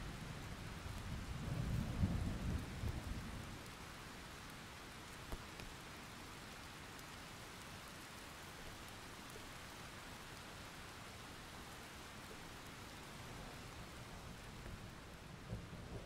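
Steady rain hissing, with a rumble of thunder that swells about two seconds in and dies away, and another rumble starting near the end.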